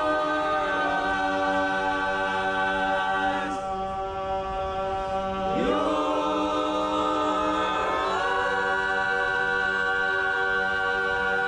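Men's a cappella group singing long held chords over a sustained bass note, the voices sliding to a new chord about six seconds in and shifting again at about eight seconds.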